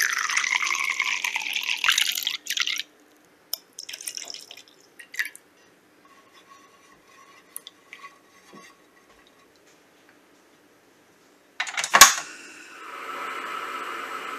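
Plum wine poured in a stream into a glass beaker for about three seconds, then a few light scrapes and knocks as it is stirred with a spatula in an enamel saucepan. About twelve seconds in, a portable gas stove's igniter clicks loudly and the burner lights with a steady hiss.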